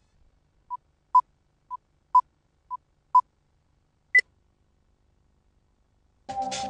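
Countdown leader beeps: short beeps of one steady pitch, one loud beep each second with a fainter one half a second before it, ending in a single higher-pitched beep. Electronic music with a beat starts near the end.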